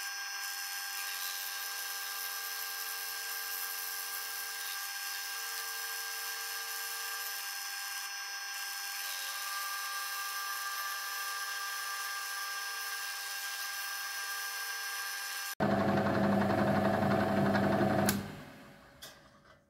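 Milling machine spindle turning a cup grinding stone over the face of a metal workpiece: a steady whine with a high grinding hiss. Near the end it turns suddenly louder and lower for a couple of seconds, then dies away as the stone spins down to a stop.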